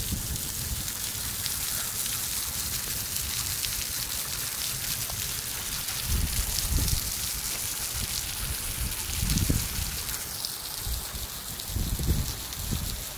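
Heavy downpour: a steady hiss of rain falling on wet pavement and streaming off the edge of a shelter roof, with a few short low rumbles about halfway through and near the end.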